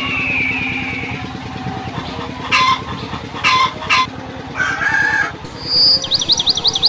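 Laying hens in a poultry house calling and squawking: one long falling call at the start, then several short loud squawks around the middle. Near the end comes a run of rapid high chirps, like a small bird.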